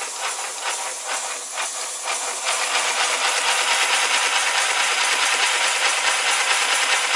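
Scratch-built 0-8-4 live-steam garden-railway locomotive hissing steam under a ceramic burner. For the first couple of seconds the hiss has a fast pulse of about four beats a second, then it settles into a steady, slightly louder hiss. The boiler can't hold 20 psi because the burner isn't putting in enough heat.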